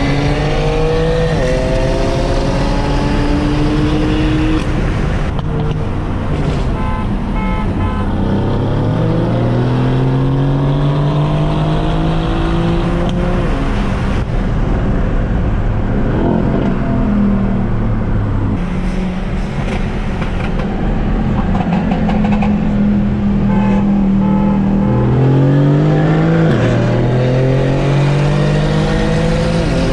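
BMW F80 M3 Competition's twin-turbo 3.0-litre inline-six, tuned with a Bootmod3 Stage 1 map, accelerating hard in several pulls. The engine note rises, drops at each upshift and climbs again, with a steadier cruising stretch partway through.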